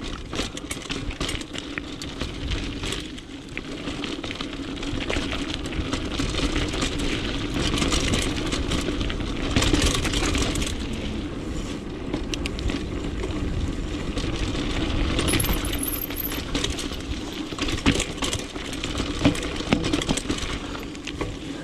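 Mountain bike riding along a dirt singletrack: tyres rolling over dirt and dry leaves under a steady rushing noise, with the chain and bike rattling and clicking over bumps, and a few louder knocks.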